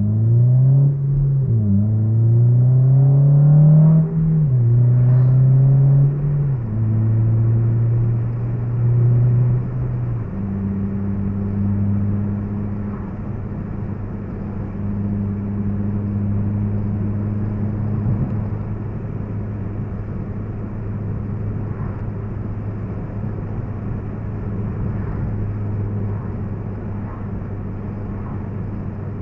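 Honda Civic Si's 2.0-litre K20Z3 four-cylinder engine, heard from inside the cabin, revving up through the gears with four upshifts in the first ten seconds or so. It then settles into a steady drone at a cruise of about 50 mph.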